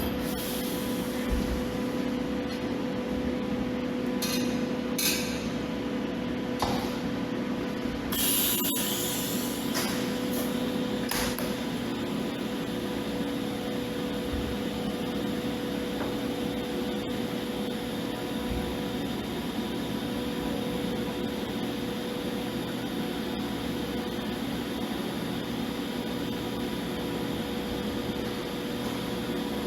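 TIG welding: a steady electric hum from the arc and welding machine, with a few short hisses of gas early on and around eight seconds in.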